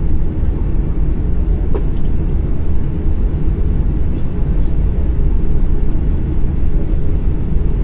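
Steady low rumble inside the cabin of an Airbus A340-600, its four Rolls-Royce Trent 500 engines running at low power. A faint click comes about two seconds in.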